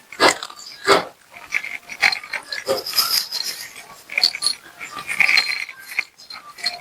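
A tabby cat chewing and smacking a treat: irregular wet clicks and crunches, with a few louder, fuller chomps near the start.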